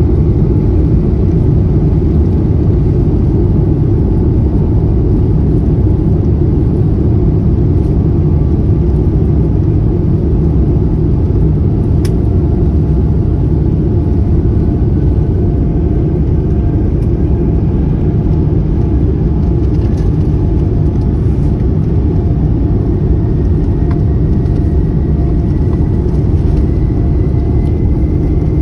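Cabin noise of a Boeing 787-9 on its takeoff roll, engines at takeoff thrust: a loud, steady rumble with a faint whine that rises slowly in pitch. A single sharp click sounds about twelve seconds in.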